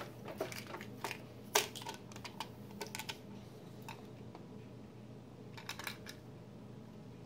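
Crinkles and small sharp clicks of plastic blind-bag wrap being picked and peeled off a small candy container, loudest about a second and a half in and sparser toward the end.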